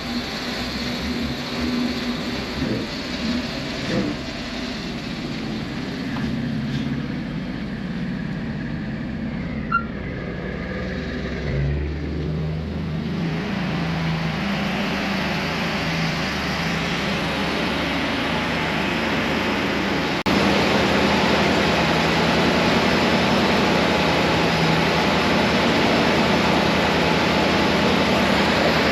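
Blue Bird Vision school bus running with a steady low engine hum. About 13 seconds in a broad hiss rises over it, and about 20 seconds in the sound steps up suddenly to a louder, steady level.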